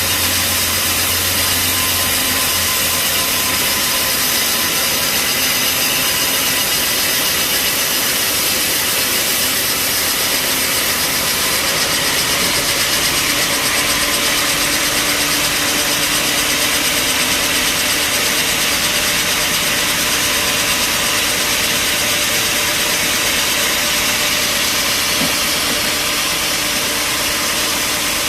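Band sawmill running with a steady machine noise throughout, without pauses. A low hum underneath drops out about two seconds in.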